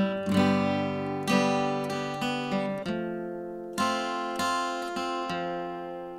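Acoustic guitar strumming the instrumental intro of a song, each chord ringing out and fading before the next strum comes about every half second to a second.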